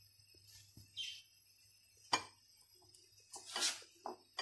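Faint handling sounds of a raw chicken leg being dredged in dry seasoned flour in a bowl: soft scuffs, a light tick about two seconds in and a brief rustle about three and a half seconds in. A short high chirp sounds about a second in.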